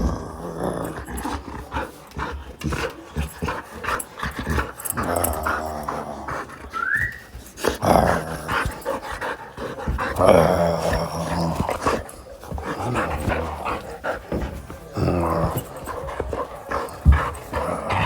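A dog growling in play in several bouts, with a short rising whine about seven seconds in and frequent knocks and scuffles.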